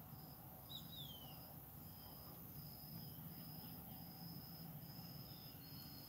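Faint, high insect trilling, like a cricket, in repeated spells of about half a second with short gaps. About a second in, a bird gives two short falling whistles.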